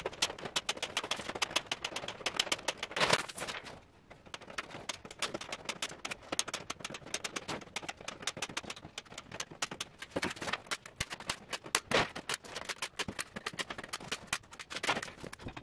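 Steel cage wire clicking and rattling quickly as it is stretched and handled, with a few louder sharp snaps of a staple gun fastening it.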